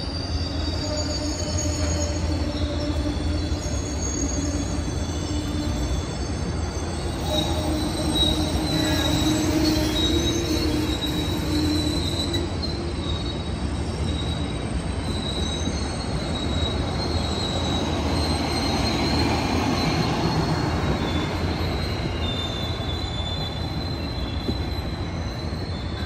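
Amtrak Superliner bilevel passenger cars rolling past at a station platform as the Coast Starlight pulls in. A low rumble runs under several high-pitched wheel squeals that come and go, with the sound swelling twice as cars pass close by.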